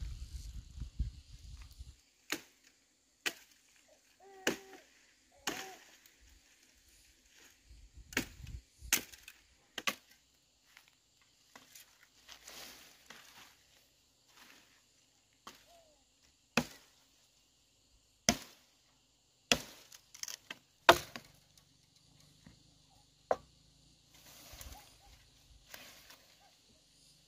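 Chopping: over a dozen single sharp strokes at irregular intervals, a second or more apart, the loudest about two-thirds of the way through.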